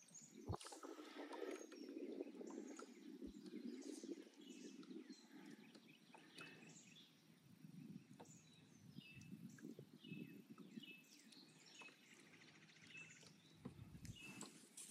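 Near silence: faint bird calls, short chirps repeating every second or so, over a low background hush, with a couple of soft knocks near the start.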